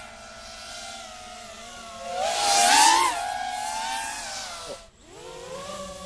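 Drone motors and propellers buzzing with a stack of steady pitched tones. The sound swells louder and rises in pitch about two and a half seconds in. Just before five seconds the pitch drops away and it almost cuts out, then climbs back up as the motors spin up again.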